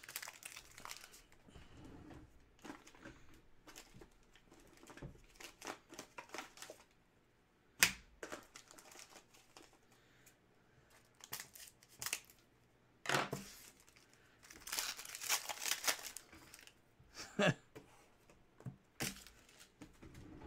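Trading-card packaging being handled and opened: plastic wrapping crinkling and tearing, with a few sharp clicks and snaps scattered through, the loudest about a third of the way in.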